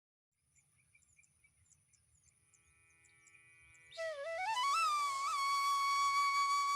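Flute-like music: faint high chirps at first, then about four seconds in a loud flute note slides upward in steps and is held steady.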